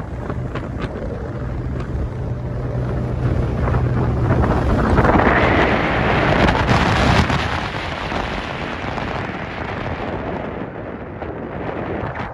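Wind buffeting the microphone on a moving motorboat, over the rush of water, with a low steady hum from the boat's engine in the first few seconds. The wind noise swells loudest about halfway through, then eases.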